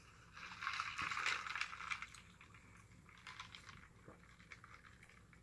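A person chewing food close to the microphone: a burst of wet, crackly clicking mouth noise from about half a second to two seconds in, then fainter scattered clicks.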